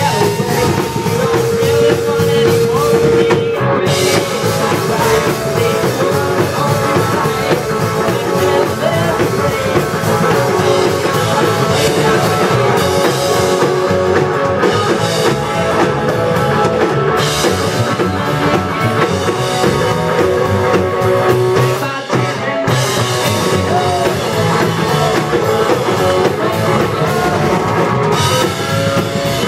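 Live rock band playing: electric guitar, drum kit and upright double bass, with a brief break in the music about two-thirds of the way through.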